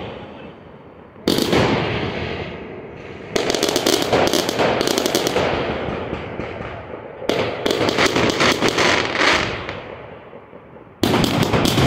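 Aerial fireworks going off overhead: four sudden bangs, two to four seconds apart, each followed by a quick run of crackling pops that fades out.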